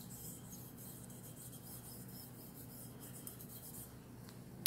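Toothbrush bristles scrubbing a wet aluminum seat post in quick repeated strokes, brushing off the black smut left after a caustic-soda bath strips its anodizing. One sharp click just before the end.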